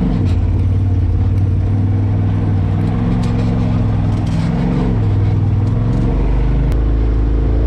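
Polaris RZR side-by-side's engine running under the cab, its pitch rising and falling with the throttle, with scattered light clicks and rattles over a rocky trail.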